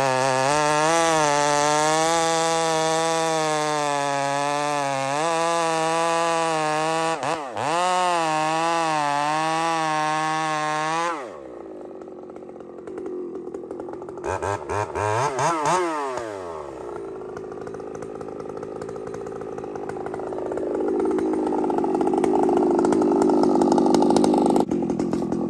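Two-stroke gas chainsaw at full throttle cutting into a dead, bone-dry stump, testing a freshly sharpened chain. About eleven seconds in, the throttle is let off and the engine drops to a low idle. It revs up and back down once briefly, then idles on.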